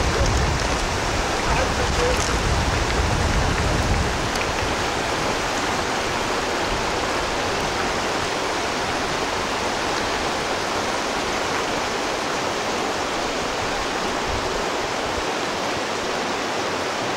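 Steady rushing of flowing river water, with a low rumble over it for the first four seconds.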